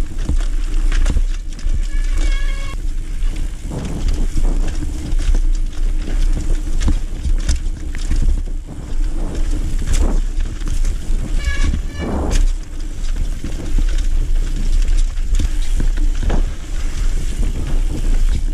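Mountain bike running fast down a rooty forest dirt trail: heavy wind rumble on the microphone, with tyres and frame clattering and knocking over roots and bumps throughout. Two brief, high, steady-pitched squeals, about two seconds in and about two-thirds through.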